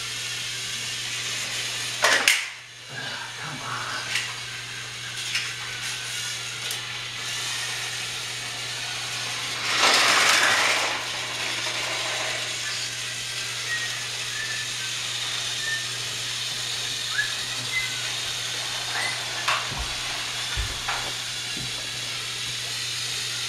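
Battery-powered toy trains running on plastic track: a steady whirr of small motors with scattered clicks. There is a sharp loud knock about two seconds in and a louder rushing noise for about a second around ten seconds in.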